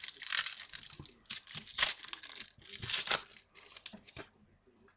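A foil trading-card pack wrapper being torn open and crinkled in a run of quick, crackly rips that stop about four seconds in.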